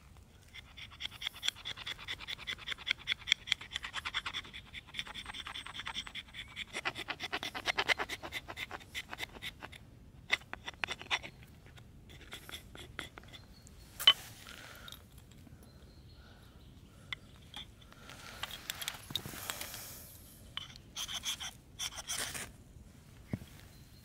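A blade working wood with rapid, even scraping strokes for about the first ten seconds, then scattered scrapes. A single sharp knock comes about fourteen seconds in, a short rustle near twenty seconds, and a few more strokes after it.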